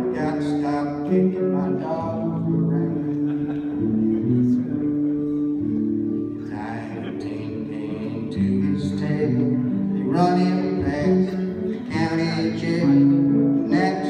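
Acoustic guitar playing a folk song live, in a passage with no sung words.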